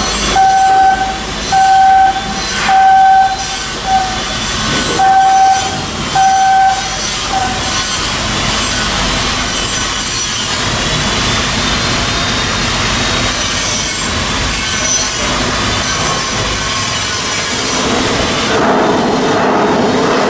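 A warning beeper sounding about seven short, steady beeps at one pitch, over a steady hiss of shipyard work noise that carries on alone after the beeps stop.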